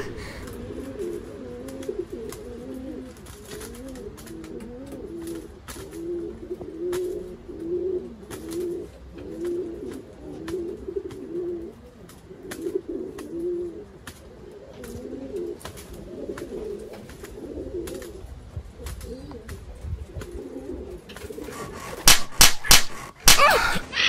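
Pigeons cooing: a long run of low, repeated coos. Near the end come a few loud, sharp sounds.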